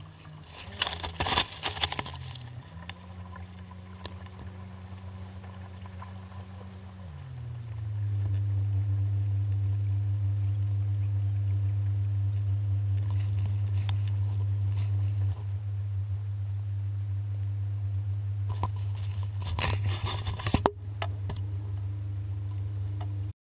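Boat motor running with a steady low hum. About seven seconds in its pitch drops and it gets louder, then holds steady. There are a few clattering knocks near the start and again near the end.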